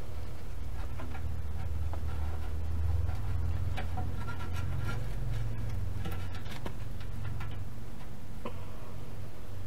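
Hands wrapping a fire-resistant, ceramic-coated bandage around the muffler pipe to seal a burnt-through hole: scattered soft clicks and crinkles over a low steady rumble.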